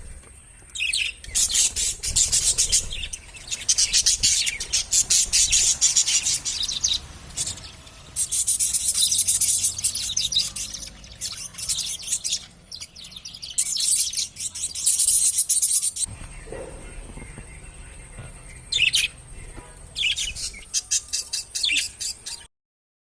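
Budgerigars chirping and chattering in rapid, high-pitched bouts of a few seconds each, with short quieter gaps between. The sound cuts off suddenly near the end.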